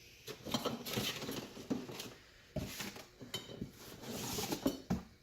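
Parts being lifted out of a cardboard ceiling-fan box: a steady run of irregular rustling, with short knocks and light clinks of metal and cardboard handling.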